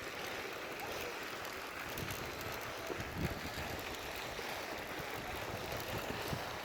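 Steady, even rush of outdoor background noise, with a few faint soft knocks about two to three seconds in.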